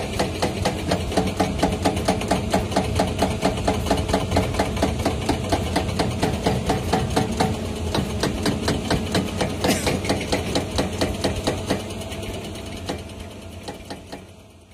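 Excavator-mounted hydraulic rock breaker hammering rock, several blows a second over the excavator's diesel engine, easing off and fading out near the end.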